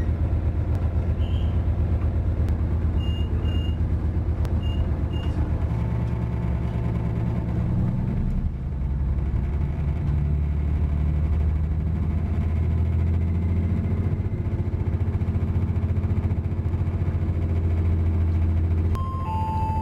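Diesel train engine heard from inside the carriage as the train pulls away from the station: a steady low drone that grows louder and rises slightly in pitch about halfway through. A few short high beeps come in pairs a few seconds in, and a falling two-note chime sounds near the end.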